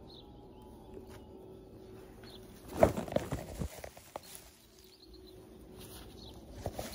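Rustling and crackling of grass and leaves close to the microphone: a burst of crackles lasting about a second, a little before halfway, with a single click near the end. Faint short bird chirps come now and then.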